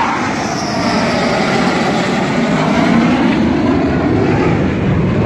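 Dassault Rafale fighter jet's twin M88 turbofans passing low overhead on landing approach: a loud, steady jet roar whose pitch slowly sweeps down as it goes by.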